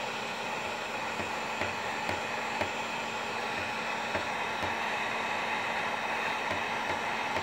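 Wagner heat gun running steadily, its fan blowing a rush of hot air with a steady hum underneath, as it melts mink oil into a boot's leather seam.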